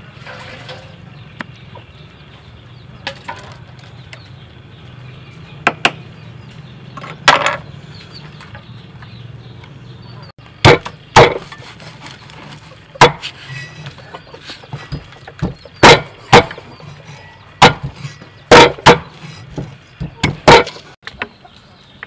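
Knife chopping on a thick wooden chopping block. There are a few scattered knocks at first, then from about halfway a run of loud, sharp, irregular chops.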